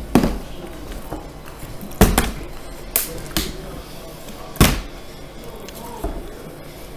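A plastic water bottle being flipped and landing on a hardwood floor, a hard knock each time it hits: about six knocks, the loudest about two seconds in and again a little past halfway.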